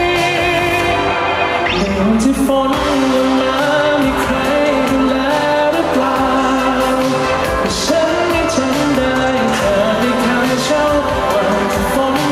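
A male singer singing a Thai pop song live over full instrumental backing. He holds and bends the melody line with vibrato.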